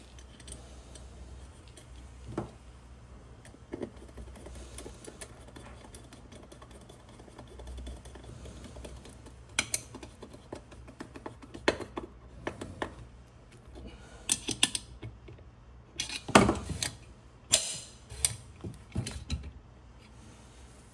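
Hand tools and small metal parts clicking and knocking against an aluminium machine housing as it is worked on by hand, with a screwdriver turning a screw. Scattered, irregular taps, sparse at first and busier and louder in the second half.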